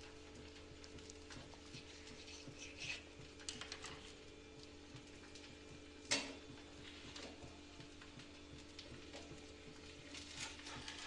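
Faint handling noises of a knife and a cut food roll on a wooden chopping board: small clicks and rustles, with one sharper knock about six seconds in, over a steady low hum.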